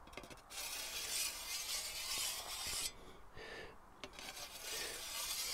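A fine ceramic grinding wheel on a wooden holder rolled along the edge of a steel scythe blade, honing it: two long grinding strokes with a short pause about three seconds in. The wheel turns only slightly, so the friction against the edge sharpens it without raising a burr.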